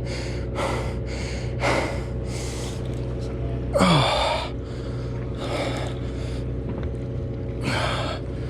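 Heavy, irregular breathing of an angler straining against a hooked yellowtail, with a louder grunt-like exhale about four seconds in. A steady low machine hum runs underneath.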